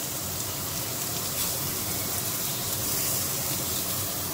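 A large beef steak sizzling steadily in a hot ridged grill pan while it sears, its edges held flat against the ridges with tongs.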